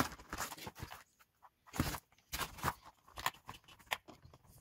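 Screwdriver prying at the plastic clips of a car's COM2005 steering-column switch unit: scattered plastic clicks and scrapes, the loudest a little before two seconds in.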